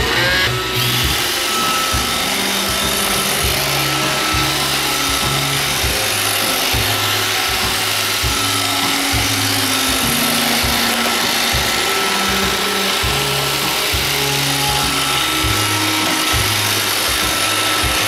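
iRobot Roomba 550 robot vacuum running a cleaning cycle, its vacuum motor and brushes spinning up about a second in and then whirring steadily at a loud, even level. Background music with shifting bass notes plays underneath.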